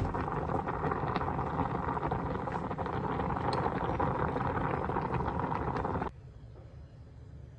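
Water at a rolling boil with fusilli pasta in a small electric cooker pot: a steady dense bubbling that cuts off suddenly about six seconds in.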